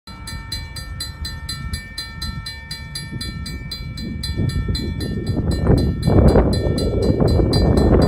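Railroad crossing bell ringing rapidly, about four strikes a second, as the crossing is activated. A low rumbling noise swells about halfway through and is loud from about six seconds in.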